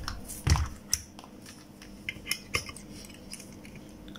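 Handling noise of a multimeter and its test probes being set in place on a circuit board on a bench: a knock about half a second in, then a few light clicks and taps.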